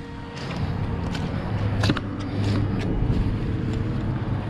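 Footsteps scuffing across a muddy pond bank and onto grass, several short scrapes and clicks, over a steady low hum.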